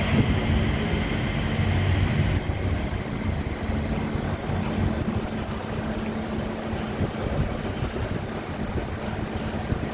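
Mitsubishi Crystal Mover rubber-tyred light rail train running, a steady low rumble with a constant electric hum, getting gradually a little quieter.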